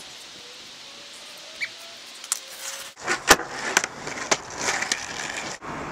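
Skateboard rolling over rough tarmac with a gritty wheel noise. Several sharp clacks of the board hitting the ground come in the second half, the loudest a little past halfway.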